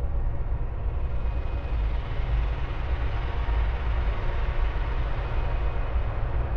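Dark ambient noise drone: a steady, deep bass rumble with a fainter hiss above it that swells a little mid-way, like the noise inside an aircraft cabin.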